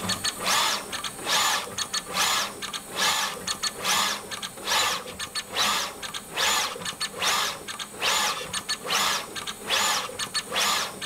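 Pick-and-place machine populating a circuit board. Its placement head shuttles between the tape feeders and the board, giving a short rushing burst a bit more than once a second, with quick clicks in between, as the vacuum nozzle picks up and places one part after another.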